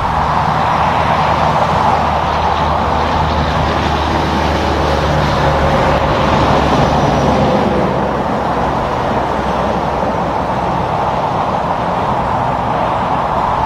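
Highway traffic passing at speed: steady tyre noise with the low hum of semi-truck diesel engines, which grows stronger around the middle as a truck passes close by.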